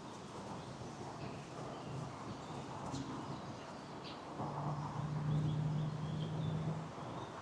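Outdoor ambience with faint, scattered bird chirps. From about halfway in, a steady low hum rises over them for a couple of seconds and then stops.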